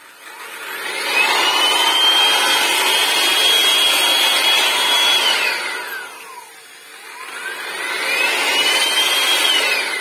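iBELL drywall sander's electric motor spinning its sanding pad freely without touching the wall. A whine rises to a steady high pitch and holds for about four seconds, then winds down, and near the end it rises again and falls away.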